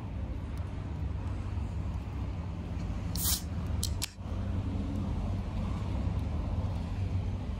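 Steady low rumble of city traffic, with one short, sharp hiss a little over three seconds in and a faint click just after it.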